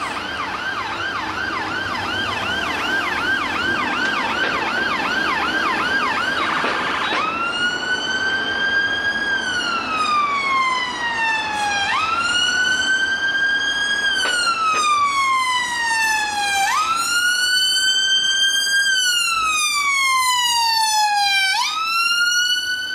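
UK ambulance siren, first in a fast yelp of about three to four sweeps a second, then about seven seconds in switching to a slow wail that rises and falls roughly every five seconds.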